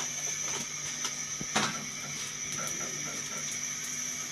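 Light clinks of a metal spoon against a ceramic bowl and plate: one right at the start, a sharper click about a second and a half in, then a few faint ticks, over a faint steady hum.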